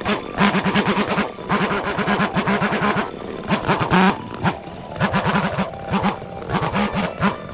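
Two-stroke chainsaw running, its engine revving up and falling back again and again in quick bursts.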